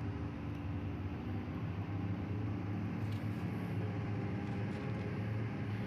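Heavy vehicle's engine running steadily under load, a low even drone.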